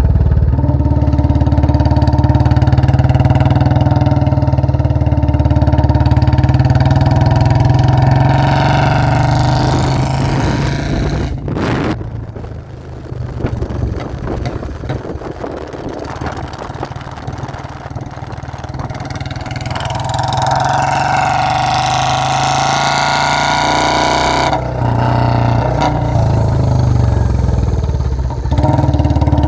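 Royal Enfield Bullet 350's single-cylinder engine with a modified exhaust, running loud and steady. It drops quieter for several seconds around the middle, then revs up for a few seconds before settling back to a steady run.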